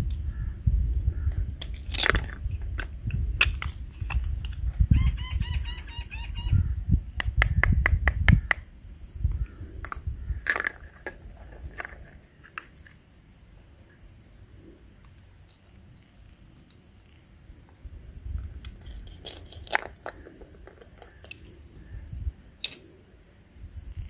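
Sharp plastic clicks and knocks every few seconds as a plastic toy knife cuts and separates plastic toy fruit, while small birds chirp steadily in the background. A low rumble runs under the first eight seconds or so, then drops away.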